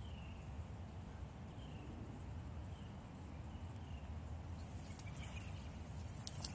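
Quiet pine-forest ambience: a steady low rumble under faint, short, high chirps repeating about once a second. Past the middle a light rustle comes in, and near the end there are a few sharp clicks.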